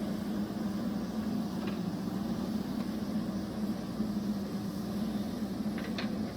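Diesel engine of a JCB backhoe loader running steadily, with a faint short high-pitched squeak about two seconds in and again near the end.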